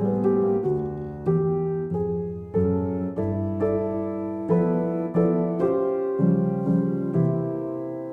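Background piano music: chords and melody notes struck in a steady flow, each fading after it is played.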